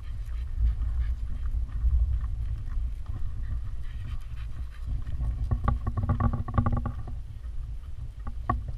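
Pembroke Welsh corgis panting as they pass close by, over a steady low rumble of wind on the microphone. About five seconds in, a rapid buzzy pulsing runs for about a second and a half.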